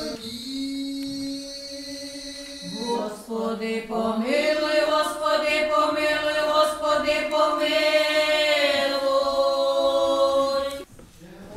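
A small women's church choir singing liturgical chant in long held notes. The singing grows louder about four seconds in on one sustained chord, which breaks off sharply about a second before the end.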